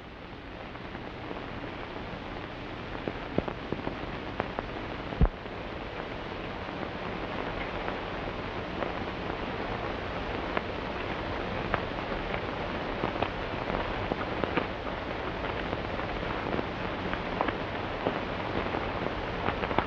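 Steady hiss and crackle of an old optical film soundtrack, with a faint low hum and scattered pops, growing slowly louder over the first several seconds.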